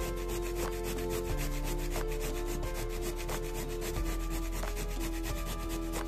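A raw carrot being grated on a stainless steel grater, a steady run of rasping strokes as it is scraped against the metal teeth.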